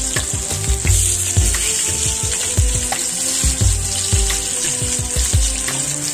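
Masala-coated fish shallow-frying in hot oil in a frying pan, sizzling steadily.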